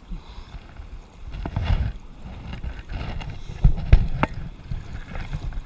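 Water splashing and sloshing in bursts as a hooked trout is played and drawn in on a small stream, with a few sharp knocks a little past the middle.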